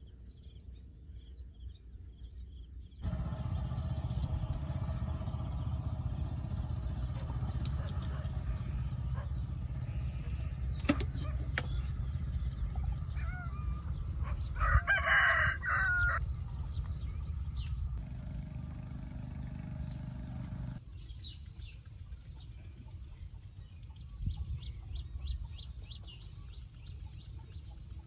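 A rooster crowing once, about halfway through, over steady outdoor background noise that shifts abruptly several times.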